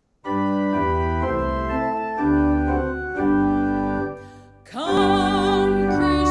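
Organ playing sustained chords as the hymn introduction, with a flute playing along. About three quarters of the way in the chords fade briefly, then a woman's voice starts singing the hymn with vibrato over the organ.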